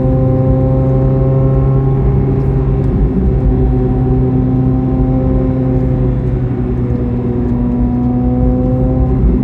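Chevrolet C8 Corvette Z06's flat-plane-crank V8 running steadily while the car is driven at moderate revs. The engine note wavers briefly about three seconds in, then carries on at a slightly different pitch.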